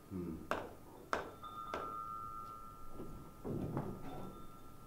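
Three sharp clicks about two-thirds of a second apart, each with a short ring, followed by a thin high ringing tone that lingers, with brief low vocal sounds from the performer at the start and again near the end.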